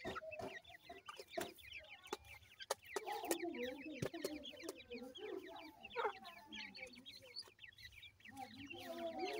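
Francolin (teetar) chicks peeping: many rapid, high-pitched cheeps that slide downward. Lower clucking calls and a few sharp clicks are mixed in.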